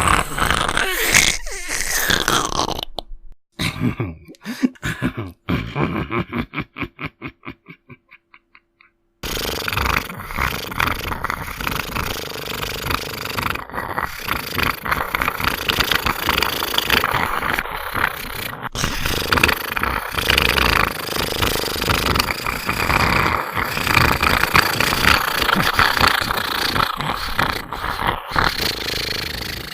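Distorted, harsh 'demonic' sound effects. A raspy noise gives way to a rapid stuttering pulse that speeds up and fades out. About nine seconds in, a dense, continuous crackling, rasping growl starts and keeps on.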